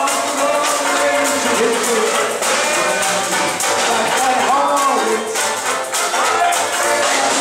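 Live Dixieland jazz band playing: several horns weaving melodic lines over banjo and drums.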